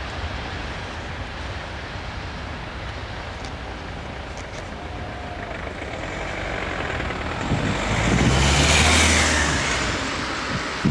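A car drives past close by, its engine hum and tyre noise swelling in the second half and then fading, over a steady low background rumble.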